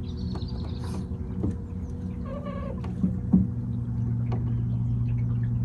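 Steady low hum of a small battery-powered electric boat motor, with birds calling over it: high chirps in the first second and a harsher call about two and a half seconds in. Two short knocks follow just after three seconds.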